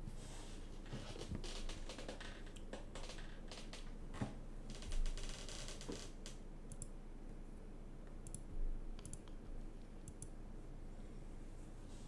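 Irregular clicking from keystrokes on an HHKB Professional 2 Topre keyboard and from a computer mouse. The clicks are dense in the first half and sparse later, with a dull thump about five seconds in and another near nine seconds.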